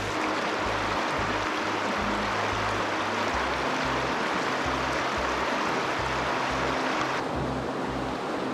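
Creek water rushing steadily, with a low, regular beat of background music underneath. The rush thins a little near the end.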